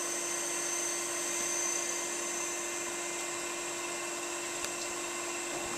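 Okamoto 1224-DX surface grinder running during its final roto-grinding pass, the wheel spinning over a part turned on an air-bearing spindle: a steady high whine over a low hum and hiss.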